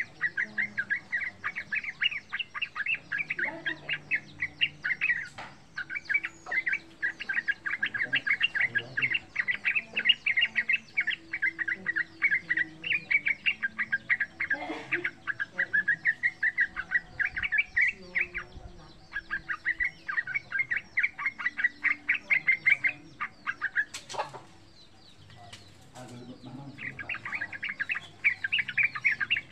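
Yellow-vented bulbul (trucukan) singing in long, fast chattering runs of notes, broken by short pauses, the longest one about three quarters of the way in. A sharp click sounds during that longest pause.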